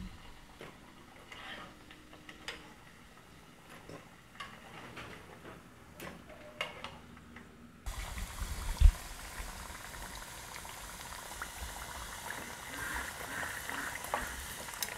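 Plantain pieces frying in hot oil in a small pot, bubbling and sizzling, with a spoon tapping and scraping as they are turned. The sizzle is faint at first with scattered taps, then a steady hiss from about halfway on, with one loud thump just after.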